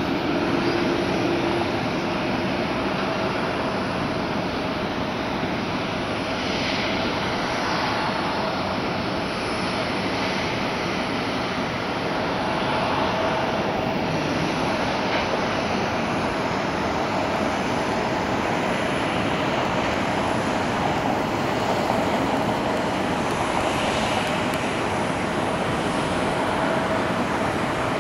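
Jet airliner engines heard across the airfield: a steady, continuous rush with a faint steady whine under it.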